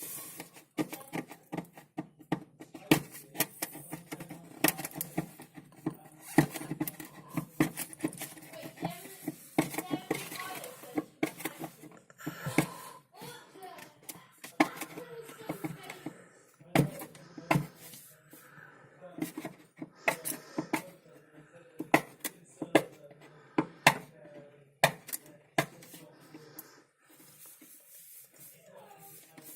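Hands working at sellotape and plastic on the back of a new tabletop fridge: irregular clicks, taps and crackles throughout, with faint muttering in places.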